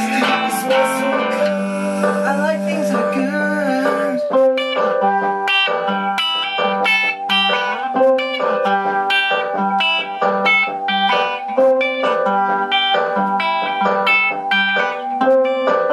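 Electric guitar and a small Casio keyboard jamming together. Sustained and bending notes give way about four seconds in to a rhythmic pattern of short repeated notes over a held tone.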